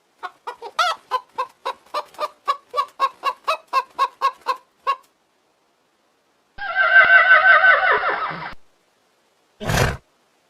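Chicken clucking in a quick run of about four clucks a second for some five seconds, then a single drawn-out call of about two seconds that falls in pitch. A short thump comes near the end.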